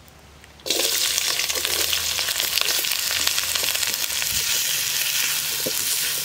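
Thinly sliced ginger dropped into hot sesame oil in a large aluminium pan, bursting into a dense sizzle and crackle a little under a second in and frying steadily as a wooden spatula stirs it.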